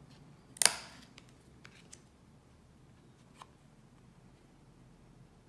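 A tarot card flipped and set down with one sharp snap about half a second in, followed by a few faint ticks of cards being handled.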